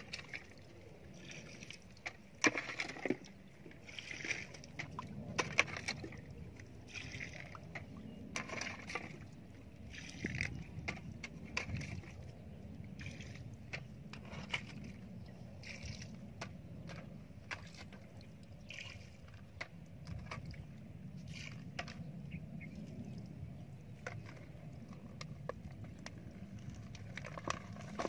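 Water sloshing and splashing as a plastic bucket is tipped out onto wet mud, in repeated short splashes every second or two.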